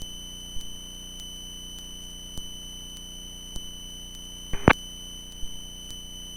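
Steady high-pitched electronic whine on the cockpit radio and intercom audio feed between transmissions. A few faint clicks are heard, and a short radio blip comes about four and a half seconds in.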